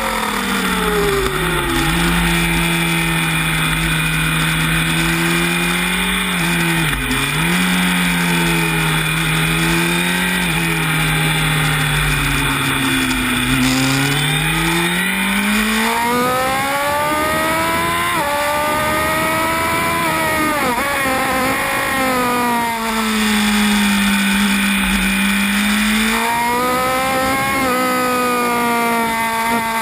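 Honda CB1000R's inline-four engine heard from the bike: the revs fall at the start, hold steady for about twelve seconds, then climb hard with a gear change about eighteen seconds in, fall away again and climb once more near the end. A steady rush of wind noise lies under the engine.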